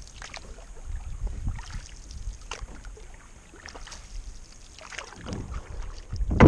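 Canoe paddling: a paddle dipping and pulling through lake water in irregular strokes, over a steady low rumble of wind on the microphone. A louder thump comes near the end.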